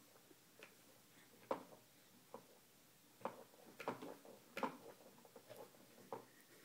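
Quiet room with a scattering of soft, irregular clicks and taps, the sharpest about a second and a half in and a cluster around four to four and a half seconds in.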